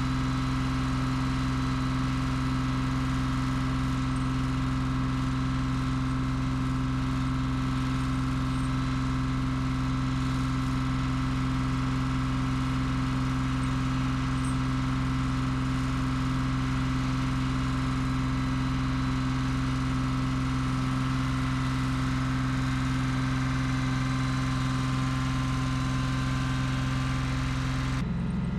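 An engine idling steadily, one even hum that never changes pitch. The sound changes abruptly just before the end.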